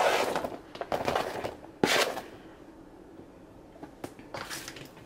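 Knife scraping diced red onion off a cutting board into a steel bowl of broccoli, with a sharp knock just under two seconds in and another short scrape a little after four seconds.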